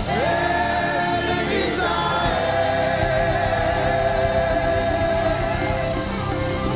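Choir singing gospel worship music, the voices gliding between notes and then holding one long note from about two seconds in.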